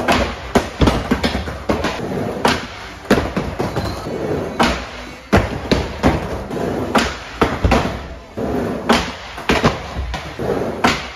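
Skateboard riding a mini ramp: wheels rolling over the ramp surface, with many sharp clacks and slaps of the board against the ramp and coping, several of them loud, as the rider tries a trick on the coping.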